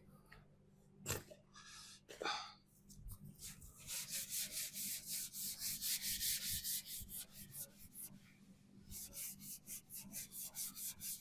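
Primer on a van body panel being sanded down by hand: quick back-and-forth rubbing strokes, about four a second, in two runs with a short pause between.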